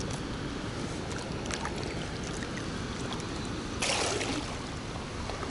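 Short splash of water in shallow river water about four seconds in, as a hand dips in at the bank. It sits over a steady low rumble.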